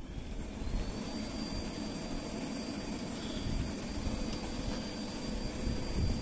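High-power PC fan forcing air into a small homemade coal furnace. It spins up with a rising whine at the start, then holds a steady high whine over a steady rush of blown air through the burning coal.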